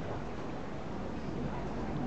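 Steady waterfront background noise, a low even rumble with hiss, as a catamaran ferry moves off across the harbour.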